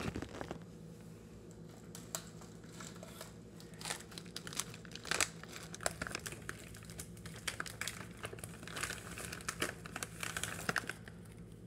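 Irregular crinkling and rustling clicks, with a low steady hum underneath.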